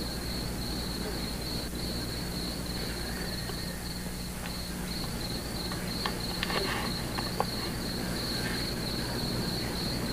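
Crickets chirping in a steady, unbroken trill, with a few faint clicks about six to seven seconds in.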